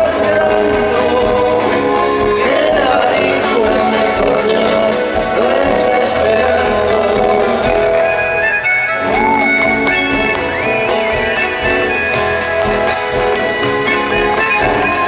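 Live folk band playing: acoustic guitars with a harmonica melody bending and sliding over them.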